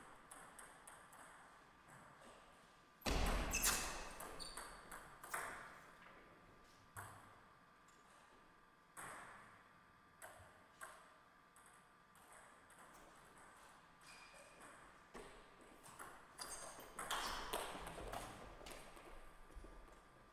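Table tennis ball clicking off rubber-faced bats and bouncing on the table during rallies, in irregular runs of sharp pings. Two busier stretches, about three seconds in and again around seventeen seconds, are louder and have a few heavier thumps.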